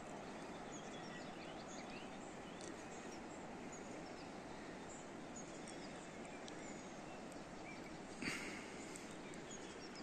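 Faint outdoor ambience: a steady background hiss with scattered distant bird chirps and calls. A brief louder burst stands out about eight seconds in.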